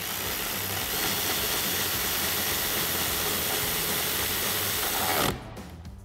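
Ratchet wrench with an 8 mm socket and extension running down a bolt: a steady, continuous ratcheting sound that stops about five seconds in.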